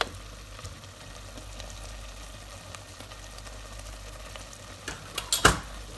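Chickpea curry simmering in a steel pot on a gas hob, a steady soft sizzling hiss. A few sharp knocks come about five seconds in.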